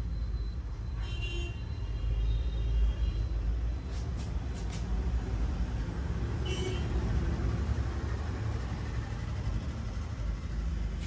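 A steady low background rumble, with a few faint clicks and short high squeaks over it.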